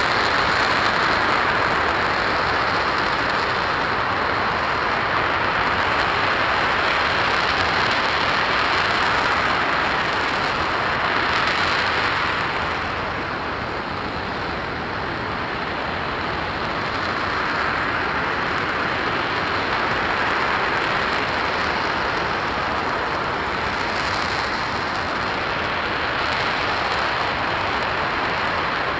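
RS-25 liquid-hydrogen/liquid-oxygen rocket engine firing steadily during a hot-fire test: a loud, continuous rushing noise that dips slightly in level about halfway through.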